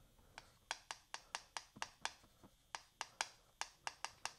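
Chalk tapping and scraping on a chalkboard as handwriting is written, a run of short sharp ticks at about three or four a second.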